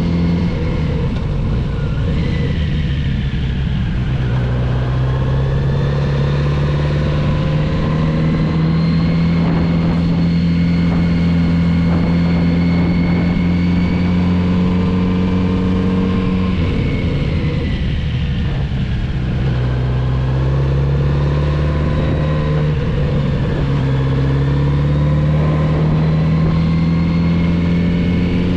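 Kawasaki Z900RS's inline-four engine pulling under way, its note dropping twice, about four seconds in and again past halfway, and climbing steadily in between as the bike slows for bends and accelerates out.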